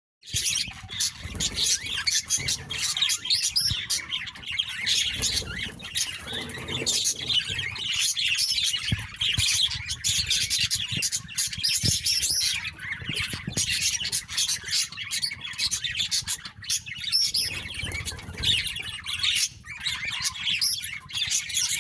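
Several small birds chirping and squawking in a loud, dense, unbroken chatter as they fight, with occasional low thumps.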